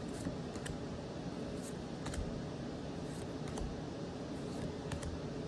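Pokémon trading cards being handled and flipped through, with faint light clicks and card-edge taps scattered over a low steady hiss.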